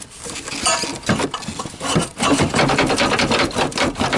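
Rapid, irregular clattering and scraping of metal and plastic as a truck's heater blower motor and its housing are pried and worked loose from the firewall, busiest from about two seconds in.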